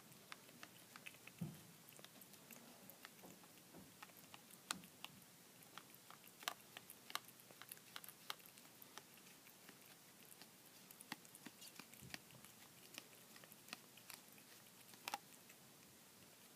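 A cat chewing and licking soft processed cheese: faint, irregular wet smacks and clicks of its mouth, a few of them sharper.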